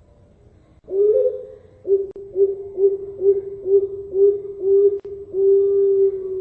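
Perkutut (zebra dove) cooing its song: one opening coo, a quick run of about seven short notes at roughly two a second, then one long drawn-out final note. It is a competition-style song of the Bangkok strain.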